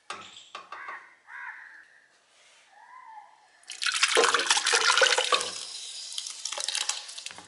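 Soaked orange peel shreds and juice poured from one steel pot into a larger steel pot, splashing loudly from about four seconds in and easing off toward the end. A few light knocks come before it.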